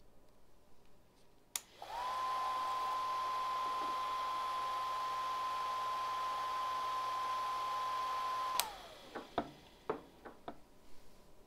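Chugger magnetic-drive centrifugal brewing pump, fitted with the Blichmann Riptide conversion kit, switched on with a click and running for about seven seconds with a steady whine over a rush of noise while it builds head pressure. It is switched off with a second click and its whine slides down as it winds down. A few light knocks follow.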